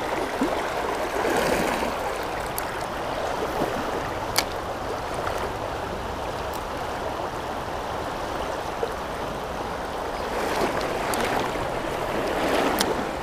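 Shallow river water rushing steadily over stones and weed. A few sharp clicks sound over it, one about four seconds in and another near the end.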